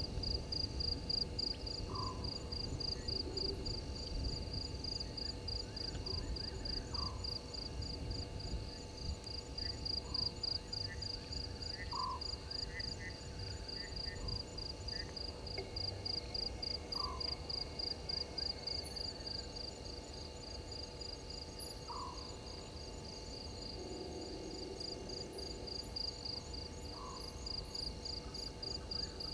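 Night chorus at a waterhole. An insect chirps in a steady, even rhythm of about two to three high chirps a second, and frogs call with short rising notes every couple of seconds, over a low rumbling background.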